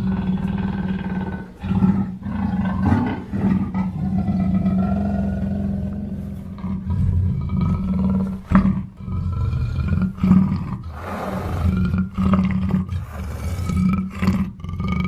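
Black panther growling and roaring: a run of drawn-out, rough growls and roars with brief breaks between them.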